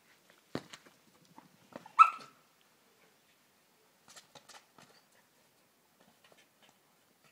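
Small Jack Russell-type terrier playing with a plastic ball: a dull knock about half a second in, then one short, sharp bark about two seconds in. Light taps and scrapes of teeth and paws on the ball follow a couple of seconds later.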